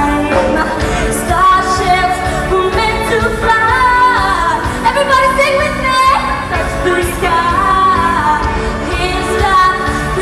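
A young female singer performing a pop song into a handheld microphone over pop music accompaniment with a steady beat.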